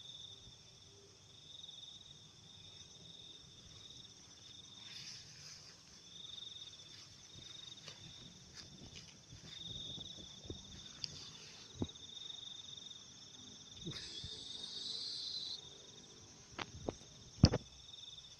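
Night chorus of crickets and other insects: a steady, pulsing high trill. A few sharp knocks or clicks come through in the second half, the loudest shortly before the end.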